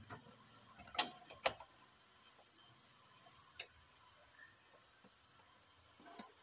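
A few sharp plastic clicks as a Honda Civic's interior door handle trim and door panel are worked loose by hand: two about a second in, a smaller one past halfway, and a faint one near the end.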